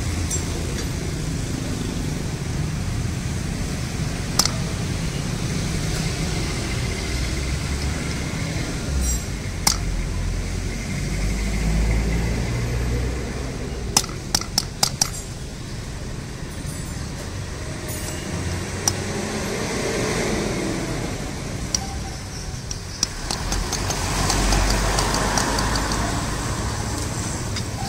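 Steady low rumble of road traffic, swelling now and then, with sharp metallic clicks of a ring spanner against the aluminium water-pump cover as it levers at the pump seal, including a quick run of four clicks about halfway through.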